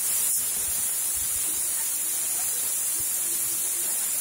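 Aluminium pressure cooker venting steam through its weighted whistle valve: a steady, loud hiss. This is the cooker at full pressure, giving one of the whistles that count off the cooking.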